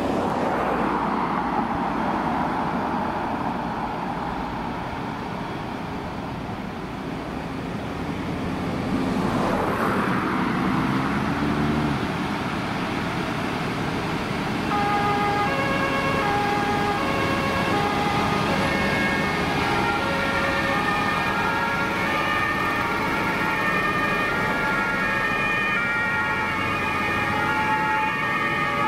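A column of fire engines and ambulances driving past, engines running and tyres hissing on the road. From about halfway, several German two-tone emergency sirens (Martinshorn) sound together, their alternating high and low tones out of step with one another.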